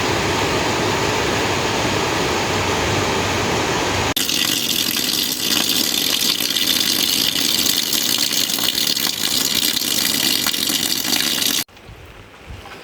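Steady rushing water for about four seconds, then an abrupt switch to a louder, hissing downpour of rain. Near the end it cuts suddenly to a much quieter background of rain.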